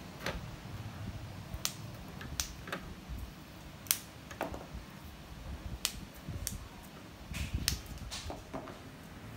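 Fresh water mimosa stems snapped by hand into short pieces: about a dozen crisp, sharp snaps at irregular intervals, the loudest about four seconds in.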